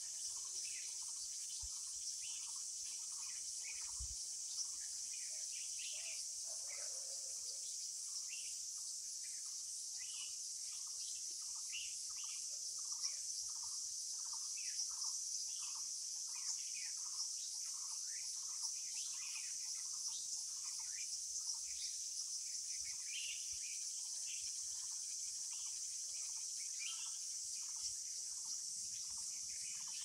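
Forest ambience: a steady, high-pitched chorus of crickets, with a short low call repeated about twice a second and scattered bird chirps over it.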